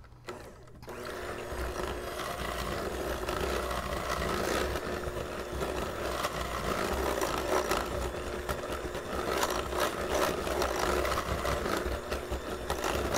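Electric hand mixer starting about a second in and running steadily, its beaters churning butter, brown sugar, molasses and egg in a glass bowl.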